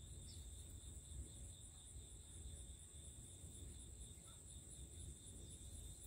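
Faint steady insect chorus, a continuous high trill with a fast even pulse, over a low background rumble.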